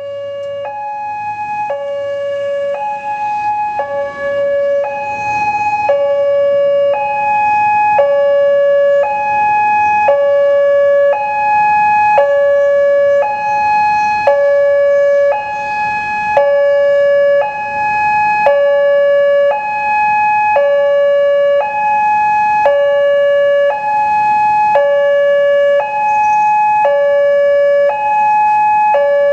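Indonesian railway level-crossing warning alarm sounding: an electronic two-tone signal alternating between a lower and a higher note about once a second, growing louder over the first few seconds and then holding steady. It signals that a train is approaching the crossing.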